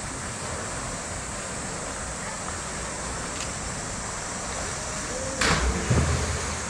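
Polar bear splashing in its pool: two loud, heavy splashes of water about five and a half and six seconds in as it heaves itself up out of the water, over a steady background wash of noise.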